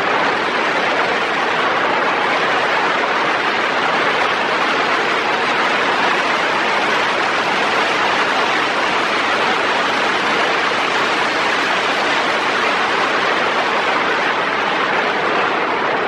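A car on the move: a steady, loud rush of wind and road noise that neither rises nor falls.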